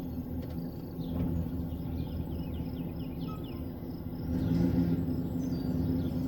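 Birds chirping in a run of short falling notes over a low, steady rumble that grows louder about four seconds in.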